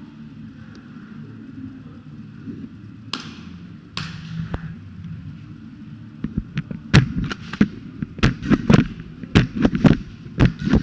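Airsoft guns firing: two sharp cracks early, then from about six seconds in a rapid, irregular string of cracks, several shots a second.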